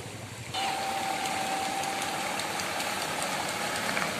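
Rushing floodwater for the first half second, then a Mitsubishi Colt Diesel truck's engine idling, starting abruptly, with a thin steady whine over its first couple of seconds.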